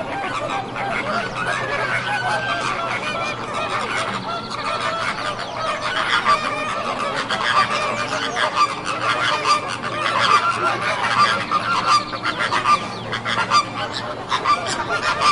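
A dense chorus of many overlapping bird calls from a large flock, continuous and busy throughout.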